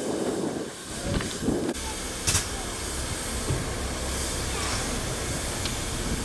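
Steady hiss of escaping steam from a standing steam locomotive, over a low rumble, with one sharp clank a little over two seconds in. It follows a couple of seconds of rougher, uneven noise that stops abruptly.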